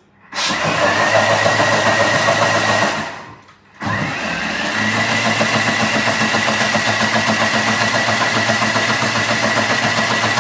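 Thermomix food processor running at speed 10, its top speed, with water and washing-up liquid in the bowl for a quick rinse-clean, blades set to reverse: a loud churning with a steady high whine. It runs about three seconds, stops for about half a second, then starts again and runs to the end.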